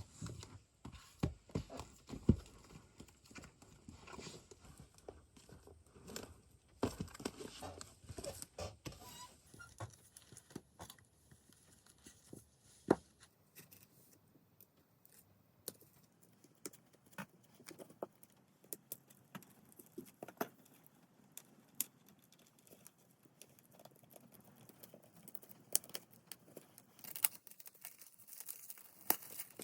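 Handling of a K-pop album and its packaging: scattered taps, clicks and light rustling, growing into denser crinkling near the end.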